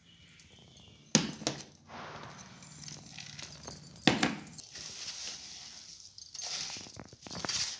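Stainless steel plates clinking together as ingredients are tipped out, with sharp knocks about a second in and again about four seconds in. In between and after, a hand scrapes and rubs a dry, crumbly khoa, sugar and nut mixture around a steel thali.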